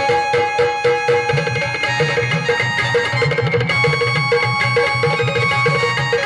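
Instrumental Indian folk-style music: a fast hand-drum rhythm in the tabla family under held melody notes, with no singing.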